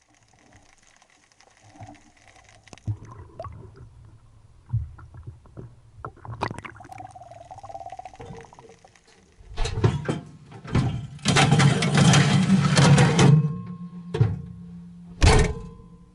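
Water sounds with scattered knocks and thunks, then a loud rushing of water lasting about two seconds, and one more sharp knock near the end.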